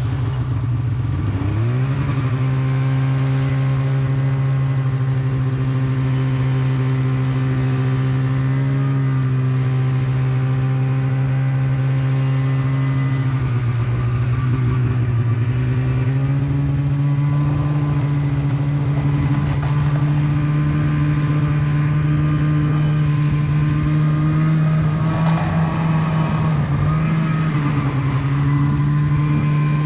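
Snowmobile engine running steadily while riding along the trail, picking up revs about two seconds in, easing off around thirteen seconds and speeding up again a few seconds later.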